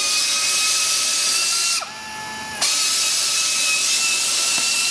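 Pneumatic wrench running with a steady high whine over an air hiss. About two seconds in it slows and drops in pitch for under a second, then speeds back up.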